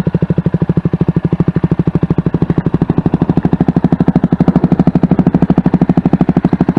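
CFMoto 300SS's single-cylinder four-stroke engine idling after an oil change, a steady putter of about a dozen exhaust pulses a second.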